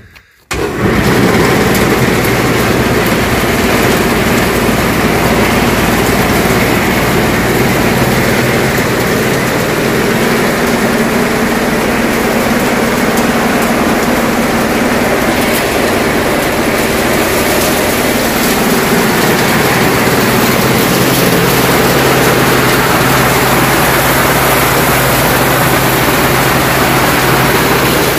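Electric-motor, belt-driven corn-cracking mill with a bladed rotor switching on. It starts suddenly about half a second in and then runs with a loud, steady whir and hum, empty, before any corn is fed in.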